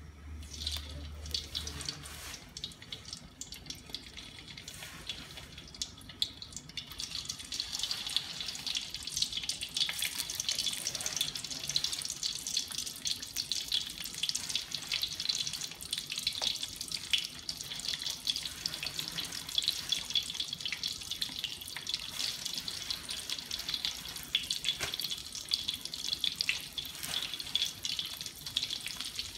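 Chicken pieces deep-frying in hot oil in a wok: a steady sizzle and crackle that swells to full strength about seven seconds in.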